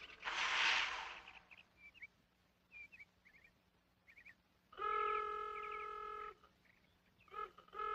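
A vehicle horn sounds one steady honk of about a second and a half, then two short toots near the end. Faint bird-like chirps come before it, and a brief rush of noise at the very start.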